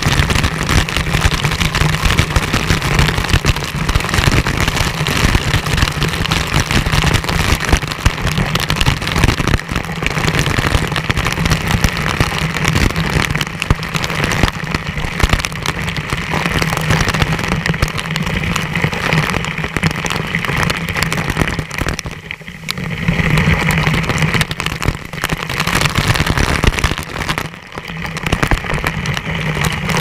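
Waterfall water pouring down onto a GoPro camera: a loud, dense, continuous rush with constant spatter and drumming on the camera. It eases briefly twice in the last third.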